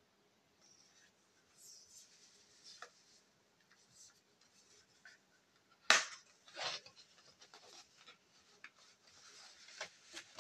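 Paper and thin card rustling and sliding as an envelope and printed cards are handled and drawn out of a cardboard box, with scattered small scrapes and taps. A single sharp tap about six seconds in is the loudest sound.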